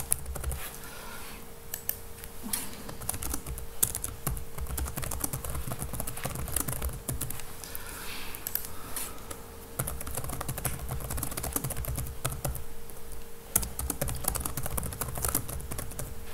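Typing on a computer keyboard: clusters of irregular key clicks with short pauses between them, over a faint steady hum.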